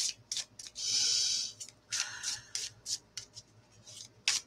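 Oracle cards being shuffled by hand. There is a longer sliding rush of cards about a second in and a shorter one near two seconds, with light flicks and taps of the cards between.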